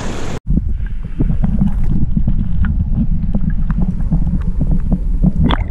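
Wind and lapping surf, then, after a sudden cut about half a second in, muffled underwater sound of shallow seawater: a low, dense rumble of moving water with scattered small clicks and pops.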